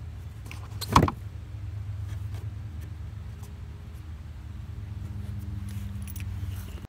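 Hand work on a car's plastic air box and intake hose under the hood: one sharp knock about a second in, then a few light clicks, over a steady low rumble.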